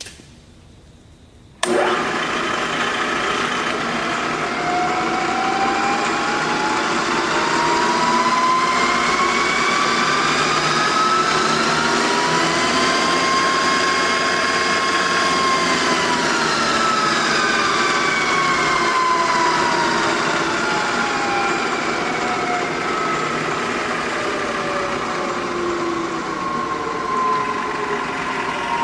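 Vertical milling machine spindle switched on and running, its whine slowly rising in pitch to a peak near the middle and then slowly falling again, as the spindle speed is brought up and back down.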